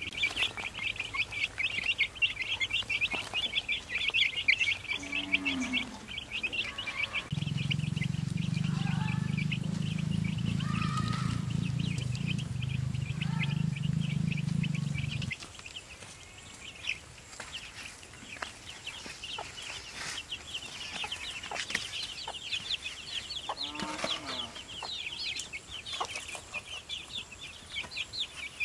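A brood of chicks peeping rapidly and without a break, with a hen's low clucks now and then. A steady low rumble comes in about seven seconds in and stops abruptly about eight seconds later.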